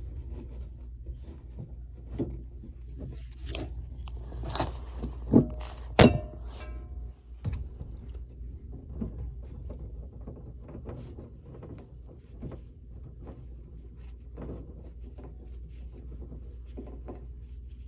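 Hands threading a water supply line's nut onto a brass angle stop valve by hand: soft handling noises and small clicks, with a few sharp metallic knocks about five to six seconds in, the last one ringing briefly. A low steady hum runs underneath.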